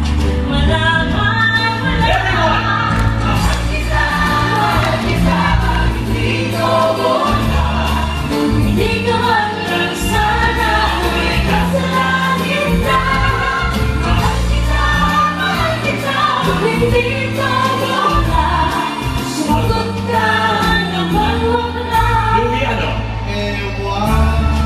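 Several singers performing a song together in harmony, with grand piano and a sustained bass line accompanying.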